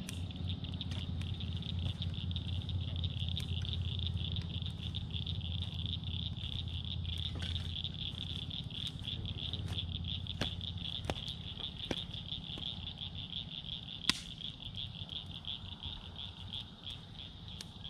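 Wood fire crackling in a steel fire ring, with scattered sharp pops, one louder pop about two-thirds of the way through. Under it runs a steady, fast-pulsing high trilling chorus from the pond's edge, and a low hum for the first several seconds.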